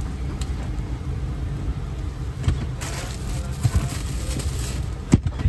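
Steady low rumble of an airliner cabin's air-conditioning and systems noise, with a few short knocks and a brief hiss a little before the middle.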